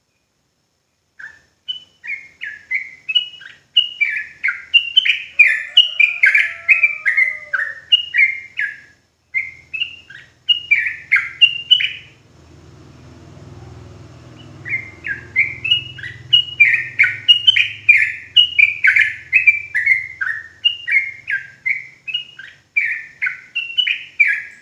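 Yellow-vented bulbul (trucukan) singing its rapid 'ropel' song: a fast string of short, falling whistled notes, about two a second. It breaks off for about two seconds midway, then carries on.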